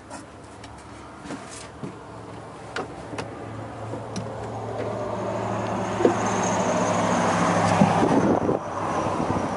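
A motor vehicle engine running with a steady low hum and a rushing sound that grows steadily louder over several seconds. Scattered knocks and footsteps on the boat come in the first few seconds.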